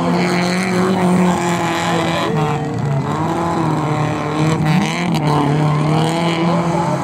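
Car engine revving hard and held at high revs as the car spins doughnuts on a dirt field, its pitch dipping and rising a little, with crowd voices underneath.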